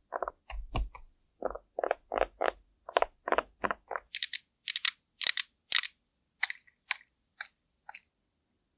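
A run of short makeup-application strokes, taps and pats of tools on a grapefruit's peel, about three a second. About four seconds in they turn crisper and hissier, about two a second, and fade out near the end.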